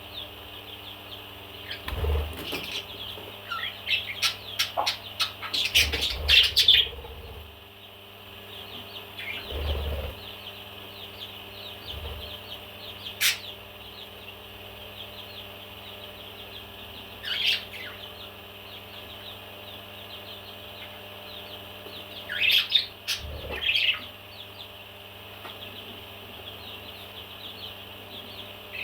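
Parrots chirping in a steady, busy chatter, with louder calls standing out several times, some of them together with dull low bumps.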